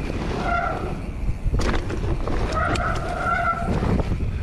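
Mountain bike descending a wet, muddy dirt trail: steady wind and tyre rumble with sharp rattles and knocks from the bike over bumps. Twice, briefly about half a second in and longer around three seconds in, a squealing tone from the hydraulic disc brakes, typical of wet, muddy brakes.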